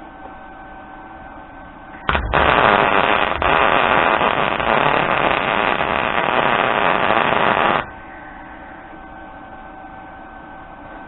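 Electric welder's arc striking with a short sputter, then crackling steadily for about five and a half seconds before cutting off suddenly: a short plug weld fusing a nut onto a broken bolt so the bolt can be turned out.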